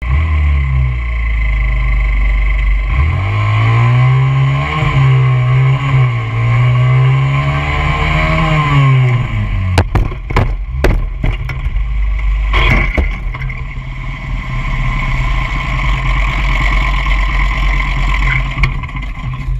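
Small dirt bike engine revving up and holding high revs, then dropping off about nine seconds in. Several sharp impacts and clatter follow as the bike crashes onto the pavement, and the engine keeps running at a lower, steadier pitch afterwards.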